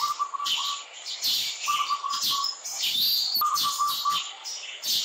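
Birds chirping: a short phrase of about six quick, even notes repeats every second and a half or so, over busier, higher chirps.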